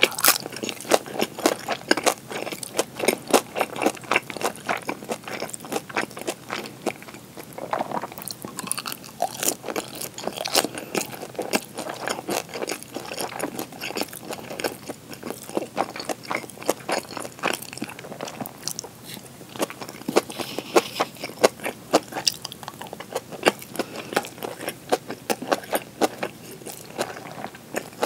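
Close-up eating sounds of a person chewing pan-fried gyoza and tuna kimchi: a steady run of wet clicks and crunches, several a second.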